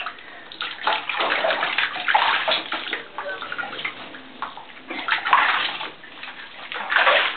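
Shallow bathwater splashing and sloshing in a bathtub as hands scoop and rub water over a wet puppy. It comes in uneven surges, loudest about two seconds in, around five seconds and again near the end.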